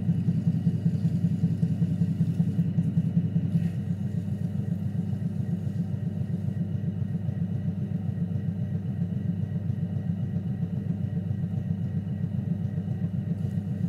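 Electric potter's wheel motor running with a steady low hum under wet clay being thrown, dropping a little in level about four seconds in.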